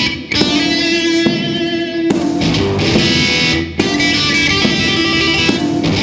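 Blues guitar music: guitar playing phrases of held notes, with short breaks between phrases about every couple of seconds.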